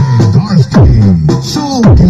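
Loud electronic dance music played at high volume through a large stacked pro-audio sound system being soundchecked, with heavy bass notes and deep falling bass drops about once a second.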